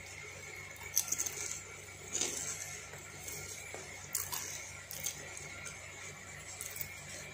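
Crunching of a Japota potato chip being bitten and chewed with the mouth closed: a few sharp, irregular crunches about one, two, four and five seconds in, fading to softer chewing near the end.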